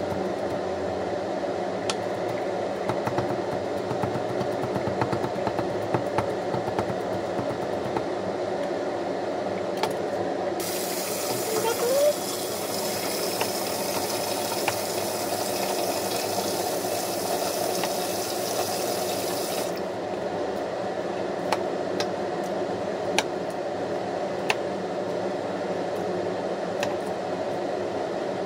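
A cleaver chopping rapidly on a wooden chopping block, mincing garlic, over a steady background hum. Partway through, a steady hiss like running tap water lasts about nine seconds and stops suddenly. After it come occasional single knife taps as broccoli florets are cut from the stalk.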